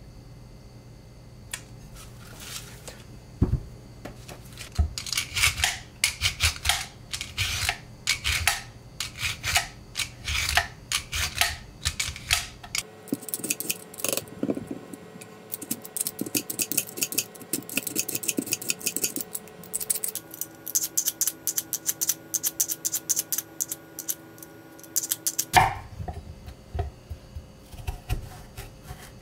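Vegetable peeler scraping the skin off raw sweet potatoes in quick repeated strokes; the potatoes are very firm and hard to peel. Near the end a chef's knife cuts through the raw flesh onto a wooden cutting board.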